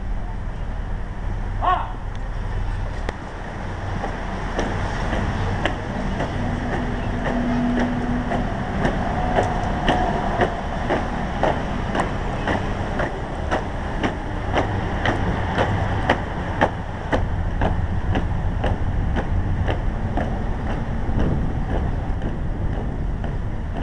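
A column of firefighters marching in step on pavement, their boots striking a regular beat of about two steps a second that is clearest in the middle, over a steady low outdoor rumble.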